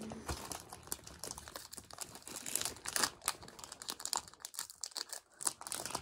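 Foil wrapper of a Pokémon card booster pack crinkling and crackling irregularly as it is torn open by hand.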